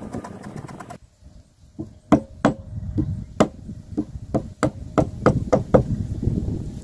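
Wood chisel being struck about a dozen times, roughly three blows a second, each a sharp knock with a short ring, as it cuts down into the end of a wooden post. Before the blows there is a brief scraping as the chisel pares wood by hand.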